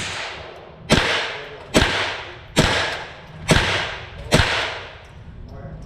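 Ruger AR-556 rifle converted to .22LR with a CMMG bolt carrier, firing five evenly paced shots a little under a second apart through a VG6 GAMMA muzzle brake. Each crack is followed by a trailing echo.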